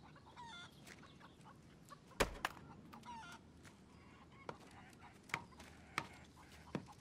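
Chickens clucking, with several sharp knocks at irregular spacing; the loudest knock comes about two seconds in.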